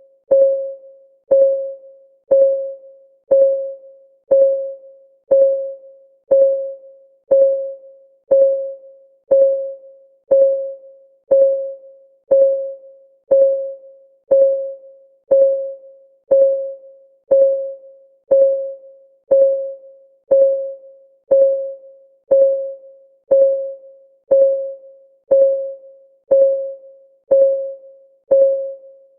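Countdown timer's synthetic ticking: one sharp, pitched tick per second, each dying away quickly, in a perfectly even rhythm.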